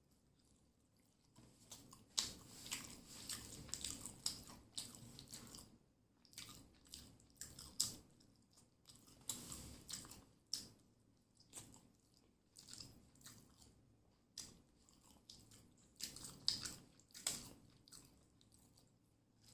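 A person chewing and biting food close to the microphone, with wet smacking and crunchy mouth sounds in irregular bursts: fried seer fish and rice with sardine curry.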